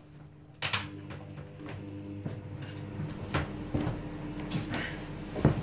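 A sharp click about half a second in as a 2 kW load is switched on through a 100 A isolator, then a steady electrical hum with several low tones while some 210 amps flow through the heavy cables. A few light knocks come through the hum.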